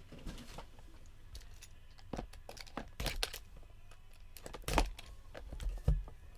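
Cardboard and plastic packaging being handled: scattered crinkles, taps and clicks, the loudest about 3 s in and near 5 s in.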